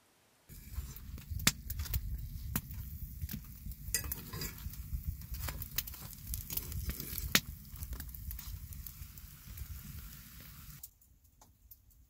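Pancake batter sizzling as it fries in a hot pan, with sharp clicks and taps of a metal fork against the pan as the pancakes are turned. The sizzling starts about half a second in and cuts off suddenly near the end.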